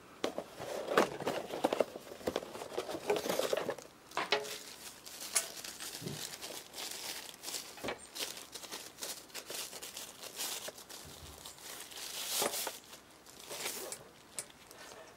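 Plastic packaging crinkling and rustling in irregular bursts as a shotgun microphone is lifted from its box and slid out of its white wrapping sleeve. The rustle is busiest in the first few seconds and flares again near the end.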